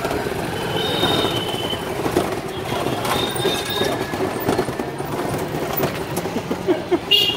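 Tuk tuk riding over a bumpy street, its body rattling and rumbling steadily amid street traffic, with a couple of brief faint high tones early on and a horn sounding near the end.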